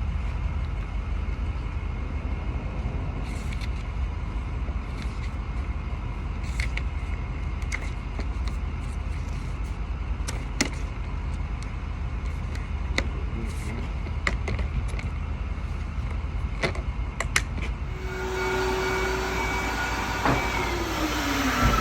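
A truck engine idling steadily, with scattered sharp clicks over it. About four seconds from the end the sound changes: steady tones come in and a tone slides down in pitch near the end.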